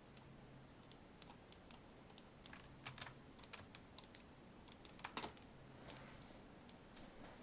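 Faint, irregular tapping of computer keyboard keys, a few scattered keystrokes a second, over a faint low hum.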